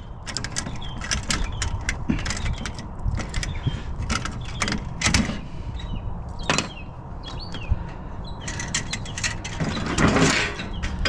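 Scrap metal parts being handled and sorted: a run of irregular clicks, knocks and light clanks over a steady low rumble, with a longer scraping rattle near the end.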